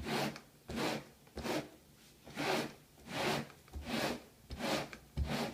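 Rubber-bristle broom pulled in short, repeated strokes across a microfiber doormat: about eight brief rasping scrapes, one every half-second to second, as the rubber bristles drag dirt out of the mat's pile.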